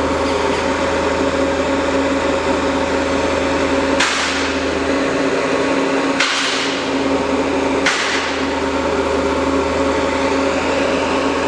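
Citizen M20-III Swiss-type CNC lathe running under power, a steady hum made of several constant tones. Three sudden bursts of hiss, about four, six and eight seconds in, each fade within a second.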